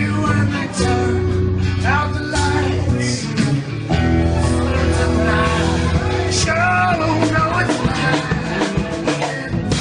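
Rock music playing: a man singing over electric guitar, bass and drums.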